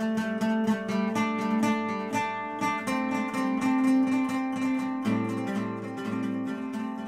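Outro background music: plucked and strummed acoustic guitar, gradually getting quieter over the last few seconds.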